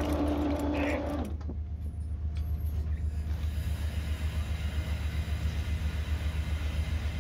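Steady low drone of a tuna purse seiner's engine and hydraulic machinery while the net is hauled in through the power block, with a faint regular pulsing over the hum.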